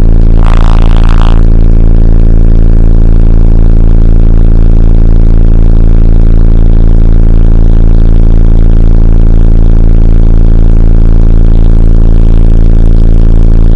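Pioneer TS-W2504SPL 10-inch subwoofer in a ported box tuned to about 30 Hz, playing a steady 28 Hz test tone, very loud and unbroken. There is a brief higher buzz about a second in.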